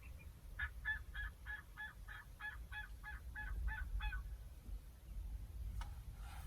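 Wild turkey yelping: a run of about a dozen even call notes, roughly three a second, that stops about four seconds in.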